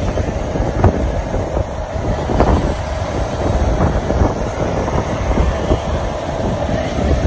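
Steady motorcycle riding noise: engine and road rumble with wind buffeting the microphone, gusting unevenly.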